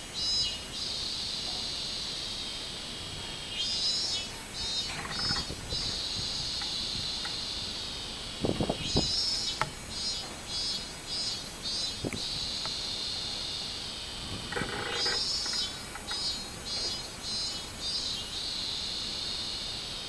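Robust cicadas (minmin-zemi) singing: pulsing "min-min" phrases that recur every five seconds or so, with a steady high buzz between them. A few short dull thumps come about halfway through.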